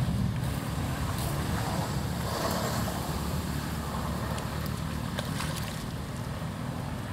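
Wind rumbling on the microphone: a steady low, fluttering rumble over a faint outdoor hiss, with a few faint ticks about five seconds in.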